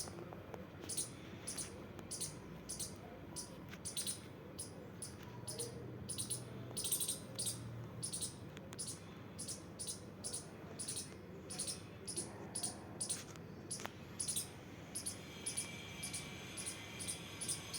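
Squirrel calling with a long run of short, high-pitched chirps, about two a second.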